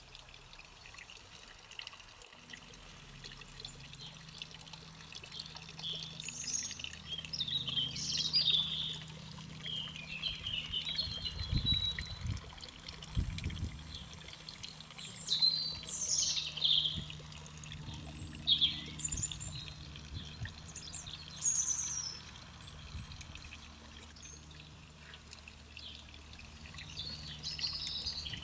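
Garden songbirds singing: bursts of quick high chirps and sweeping calls that come and go, over a low steady hum that starts about two seconds in.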